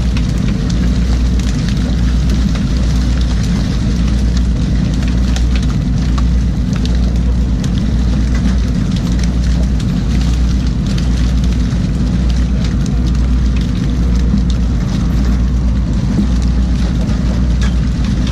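Fishing boat's engine running steadily with a low, pulsing drone, over churning water and a dense crackle of salmon splashing and flapping in the net as it comes aboard.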